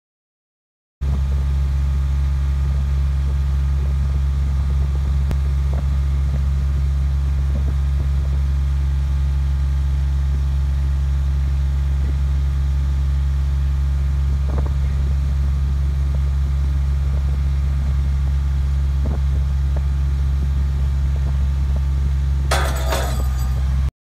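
Steady low engine drone of the hydraulic power driving a Casinjac Model 282 casing jack as it pulls on well casing. Near the end comes a sudden sharp cracking clatter lasting about a second as the casing parts under the pull.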